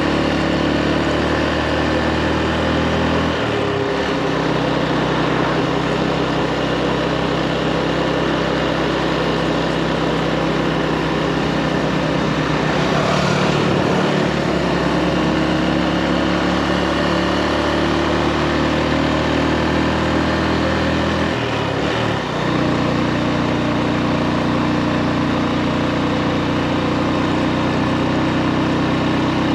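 Motorbike engine running steadily while riding. Its note changes a few times.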